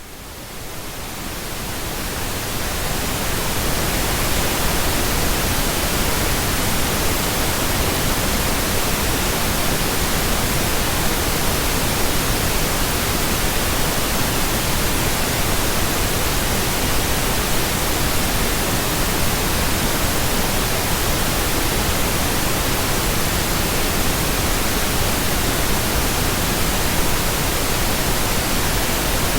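Steady synthetic pink noise: an even hiss spread across all pitches, swelling up over the first few seconds and then holding level.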